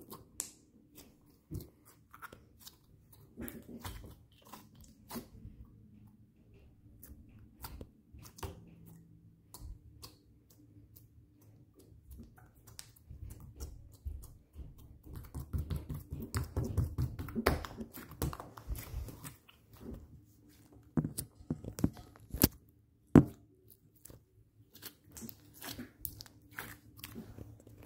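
Green slime being squeezed, poked and kneaded by hand, giving off a stream of small wet clicks and crackling pops. The clicks come thickest in the middle, with a few louder pops later on.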